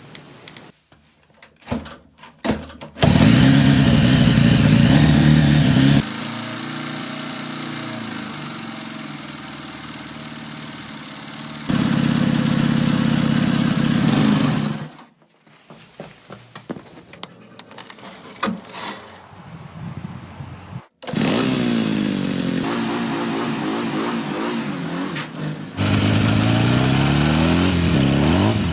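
A motorcycle engine running in several short cuts. It is loud in stretches, with quieter idling between, and its pitch sweeps up and down near the end as it revs or passes by.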